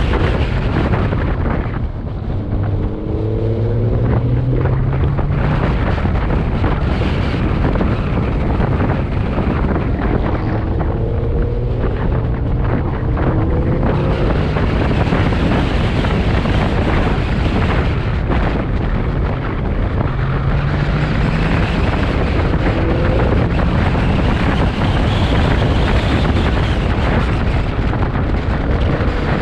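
Chevrolet C8 Corvette's 6.2-litre V8 accelerating hard again and again, its pitch climbing four times, under heavy wind and road noise on the microphone.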